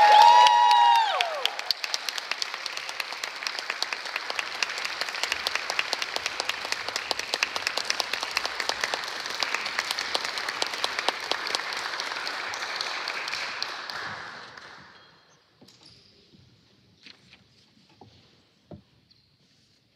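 Audience applauding, with a whooping voice cheering in the first second or so. The clapping thins and dies away about fifteen seconds in, leaving a few faint knocks and creaks.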